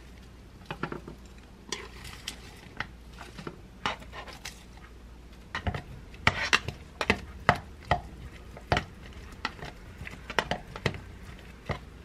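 Chopsticks clicking and scraping against a plastic salad jar and a ceramic plate as leaves are lifted out and the jar's contents stirred: irregular light clicks, sparse at first and busier from about halfway in.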